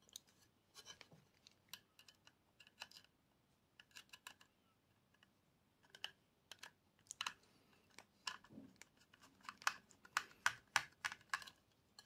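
Faint, scattered small clicks and taps of hands handling small parts and tools, coming more often in the last few seconds.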